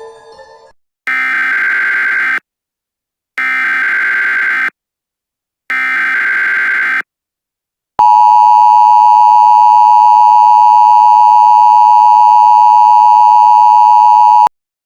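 Emergency Alert System signal. First come three short data bursts of the SAME header, about a second apart. Then the loud, steady two-tone attention signal (853 and 960 Hz) sounds for about six and a half seconds and cuts off suddenly.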